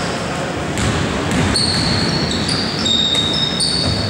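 Indoor basketball play: the ball bouncing on the court floor a few times, and sneakers squeaking in high squeals, over a steady background of player and spectator noise.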